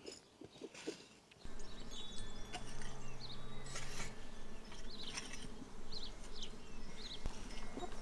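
Outdoor background sound: about a second and a half in, a low steady hum sets in, with short high chirps scattered over it.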